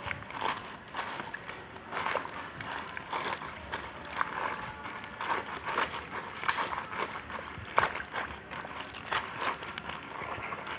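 Hands pressing and squeezing slime, giving irregular sticky clicks and small pops several times a second.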